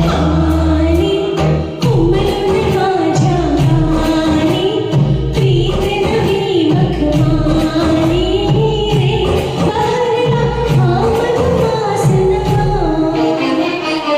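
A solo voice singing a Marathi song over a karaoke backing track, with a melody line that glides and wavers above a steady bass.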